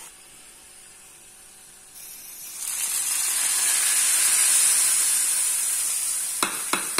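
Hot ghee with fried cashews and raisins sizzling as it is poured into milk payasam, the tempering for the pudding. The sizzle swells about two seconds in, peaks midway and fades, and two sharp metal clicks come near the end.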